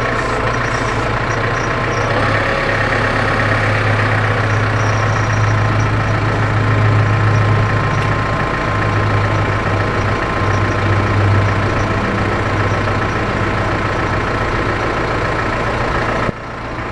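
Massey Ferguson 5600-series tractor's diesel engine running steadily at a low, even speed, heard close up from the loader.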